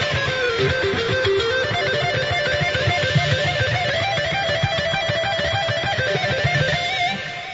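Instrumental music with guitar playing a stepping melody over a steady beat, fading out near the end.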